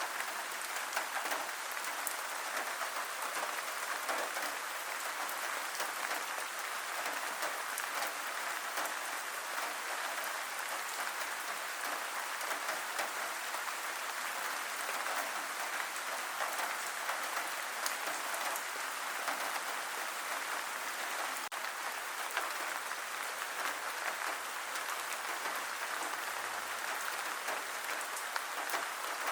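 Steady rain falling, a dense even patter of drops that holds without let-up.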